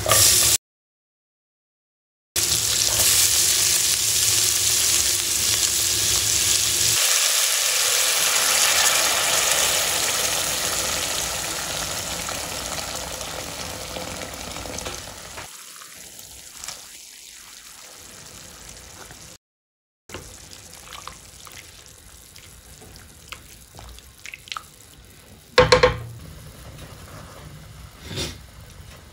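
Hot water poured in a steady stream into a pan of sautéed bitter gourd, garlic and ginger, splashing loudly at first and fading gradually over about fifteen seconds. A sharp knock sounds near the end.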